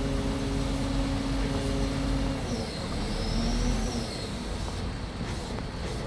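Engine running with a steady hum and low rumble; the hum cuts off about two and a half seconds in. A thin high squeal rises and falls shortly after.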